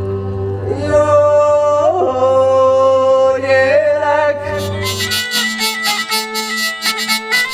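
A voice singing a slow, gliding folk melody over a low steady drone; about five seconds in the music changes to a hurdy-gurdy playing a quick melody over its steady drone, with a rhythmic buzz.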